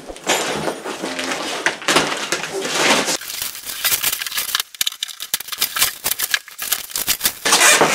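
Cardboard box and plastic wrapping rustling and crinkling as a new radiator is unpacked, with small knocks and scrapes of the packaging. Loudest in the first three seconds and again near the end.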